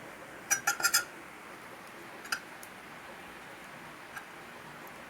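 A quick run of four or five sharp clicks about half a second in, then a single click a little after two seconds and a faint one near four seconds: small hard objects tapping or knocking together, over a low steady hiss.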